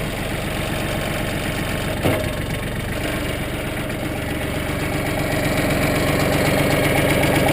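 Mahindra Max 25 compact tractor's engine running steadily. A click comes about two seconds in. From about three seconds a steady tone joins and the sound slowly grows louder as the hydraulics take up load, lifting the front to raise the back of the snowblower subframe.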